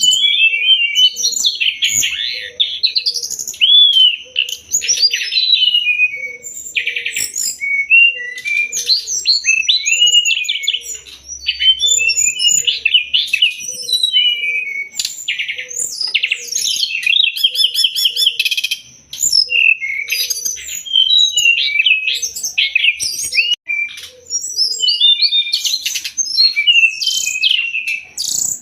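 Brown-chested jungle flycatcher (SRDC) singing continuously: a fast, varied run of chirps, trills and sweeping whistles, played as a masteran song recording for training caged birds.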